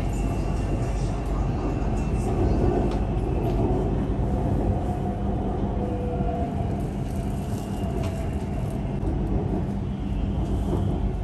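Steady rumble of a BTS Skytrain car running along the elevated track, heard from inside the cabin, with a low hum and a few brief faint tones rising over it near the middle.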